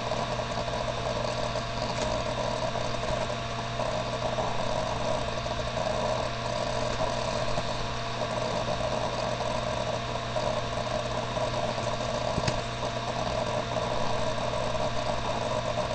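A steady, unchanging machine-like hum with fixed tones in it, like a fan or small motor, with a faint click about twelve seconds in.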